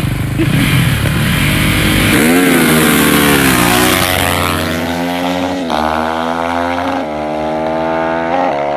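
Two dirt bike engines revving hard at the start, then launching and accelerating away at full throttle. The engine pitch climbs and drops back sharply about four times as the riders shift up through the gears.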